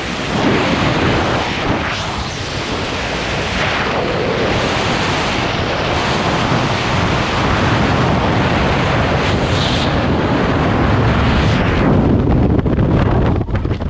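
Airflow rushing over an action camera's microphone in flight, a steady roar of wind noise that turns into a rougher, gusty buffeting near the end.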